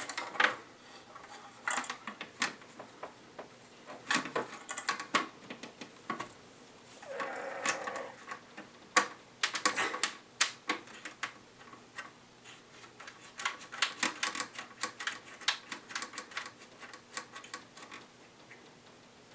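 Scattered small clicks and taps of a hand screwdriver, screws and a circuit board being handled and fitted into a pinball machine's cabinet, with a short rasping rub about seven seconds in.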